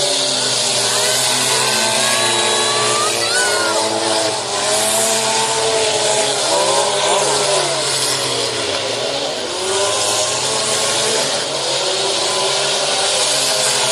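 Several demolition derby cars' engines revving at once, their pitches rising and falling over a steady noisy wash.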